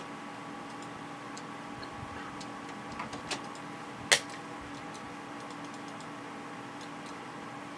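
Mouse buttons on a 1995 Microsoft Mouse clicking a few times, with two firmer clicks about three seconds in and one sharp, loud click about a second later, over a steady faint hum.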